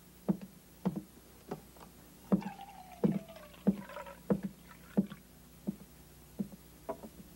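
Steady, evenly paced footsteps, about one and a half a second. In the middle, for about two seconds, coffee pours from a pot into an enamel mug with a gurgle that slides down in pitch.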